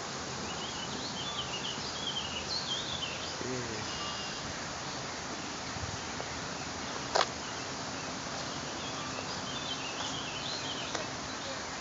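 Outdoor ambience of steady hiss with songbirds chirping and warbling in two runs of a few seconds, and a single sharp click about seven seconds in.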